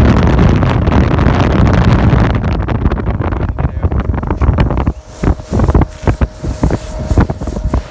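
Wind buffeting the microphone with a loud low rumble. About five seconds in it drops away into a run of irregular knocks and rustles over a faint steady hum.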